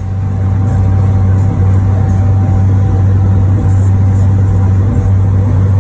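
Damas microvan's engine running steadily as it drives, heard from inside the cabin as a constant low drone that builds a little in the first half second.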